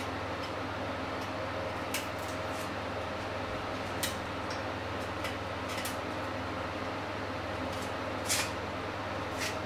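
Shells of boiled eggs crackling and snapping in a few short bursts as they are peeled off by hand with a small utensil, over a steady background hum.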